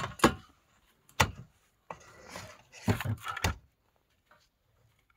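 Knocks and clatter of an ice auger and its parts being handled and lifted out of a sled: a sharp knock about a quarter second in, another just after a second, then a cluster of knocks with rustling around three seconds in.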